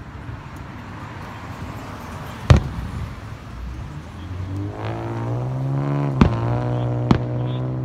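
Aerial fireworks shells bursting: one sharp report about two and a half seconds in, the loudest, then two more about a second apart near the end. From about halfway, a steady pitched drone of unclear source runs under the later reports.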